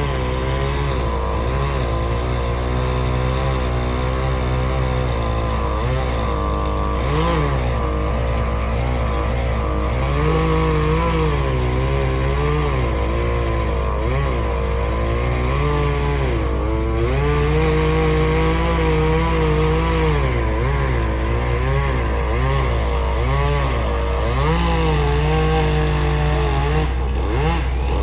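Chainsaw running and cutting, its engine speed rising and falling as it works, over a steady low engine drone.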